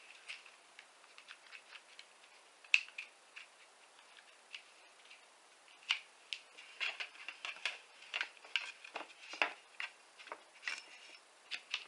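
A clamp being set and tightened on a thin sheet of aluminum: a run of irregular light clicks and taps, busier in the second half.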